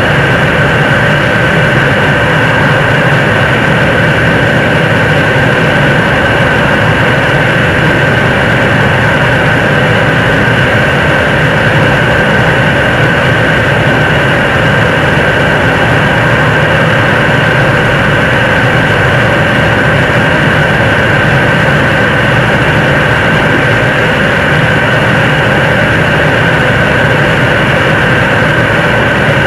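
Nuri third-stage 7-ton-class kerosene and liquid-oxygen rocket engine firing in steady-state during a long-duration hot-fire test on an altitude-simulation stand: a constant loud rushing noise with a steady high tone running through it.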